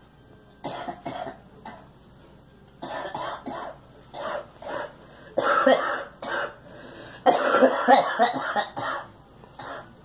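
A girl coughing over and over in short fits of several coughs each; the longest and loudest fit comes about seven seconds in.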